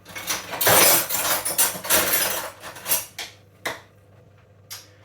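Crockery and cutlery clattering: a quick run of knocks and scrapes from plates and utensils, loudest about a second in, dying away after three or four seconds, then a single click near the end.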